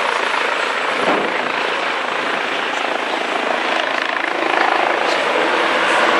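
Helicopter flying nearby: a steady rushing engine and rotor noise that grows a little louder about four and a half seconds in.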